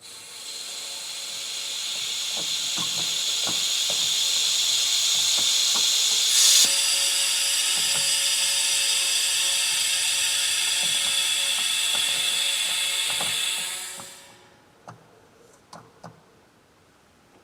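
Compressed air hissing as the shop air line is pressurized, building up over the first couple of seconds, then steady, with a brief louder burst about six seconds in, and cutting off sharply a few seconds before the end. Faint clicks sound along with it.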